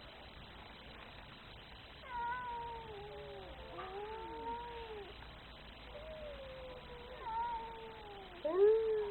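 Domestic cat yowling in long, drawn-out calls that slide up and down in pitch: one begins about two seconds in, another around six seconds, and a short, louder one comes near the end.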